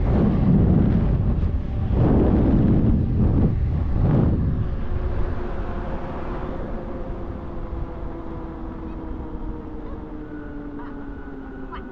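Wind buffeting the microphone in heavy gusts for the first few seconds. Then the whine of a 12 kW electric hub motor on a 72V e-bike: several steady tones that slowly fall in pitch and grow quieter, with a higher steady tone joining near the end.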